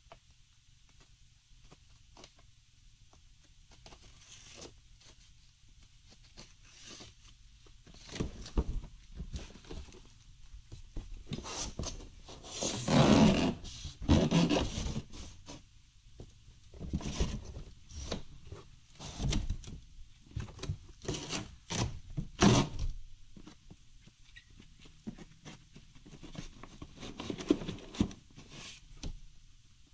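A large cardboard shipping box being handled and opened, with cardboard scraping and rustling, a few knocks, and foam packing inserts rubbing. The sounds start after a quiet stretch and are loudest about halfway through.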